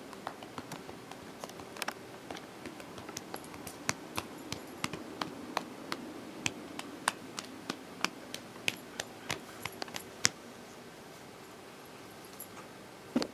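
Irregular light clicks and ticks, a few each second, which stop about ten seconds in.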